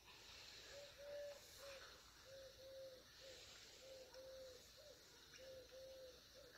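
A dove cooing faintly in the background: a three-note phrase, the middle note longest, repeated four times at an even pace.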